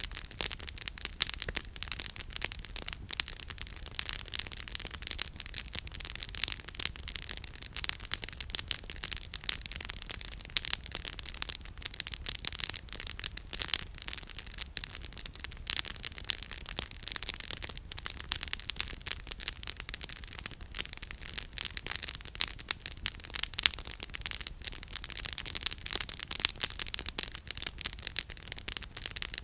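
Campfire firewood burning and crackling: a dense, irregular stream of sharp pops and snaps, with a faint low steady rumble underneath.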